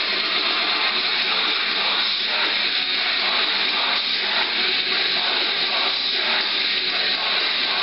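Loud, steady hiss, strongest in the upper range, with a faint uneven pulsing in the middle: noise from loudspeakers switched on as a stress stimulus for a laboratory rat.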